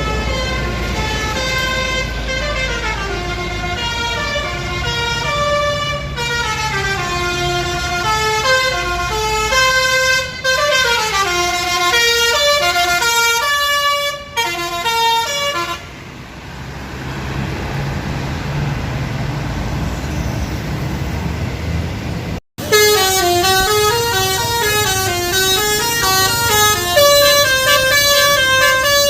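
Indonesian bus 'telolet basuri' multi-tone musical horn playing quick stepped melodies over a low engine rumble. The tune stops a little past halfway, leaving only engine and road noise. After a brief dropout about three quarters of the way through, another basuri horn tune starts.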